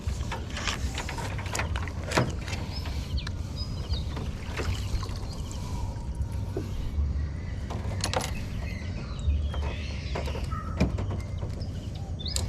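Small wooden paddle boat being worked through weedy water, with scattered knocks and scrapes against the hull over a low rumble. Faint bird chirps in the background.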